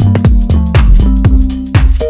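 Electronic dance music with a steady beat of about two kicks a second and a pulsing bass line.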